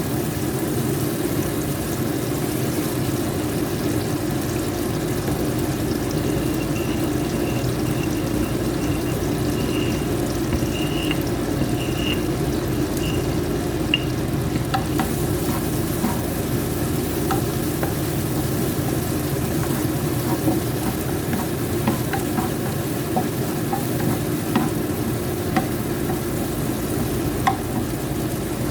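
Food sizzling steadily in a hot frying pan, with light clicks of a utensil stirring against the pan now and then.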